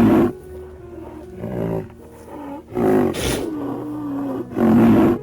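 Rhinoceros calling: several loud, deep calls, one drawn out into a wavering moan about three seconds in.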